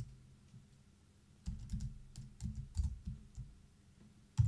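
Typing on a computer keyboard: a few keystrokes, a pause of about a second, then a quick run of keystrokes, with one sharp, louder key press near the end.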